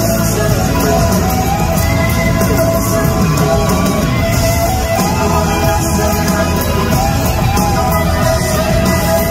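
Live rock band playing loud in an arena, led by an electric guitar solo of bending, gliding notes over drums and bass, with crowd voices mixed in.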